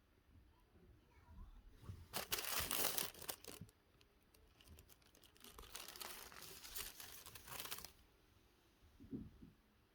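Crinkly packaging being handled and torn, in two bouts of crackling: a louder one about two seconds in and a softer, longer one in the second half.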